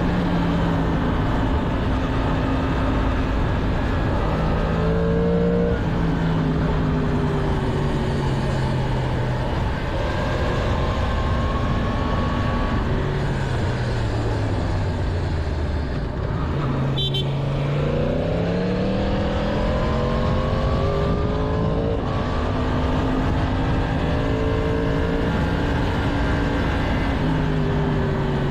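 Stock-exhaust 2022 Yamaha MT-10's crossplane inline-four engine under way, its pitch climbing under acceleration, dropping sharply at an upshift twice, and falling away slowly as the bike decelerates in between. Road and wind noise run under it, and there is a brief click about two-thirds of the way in.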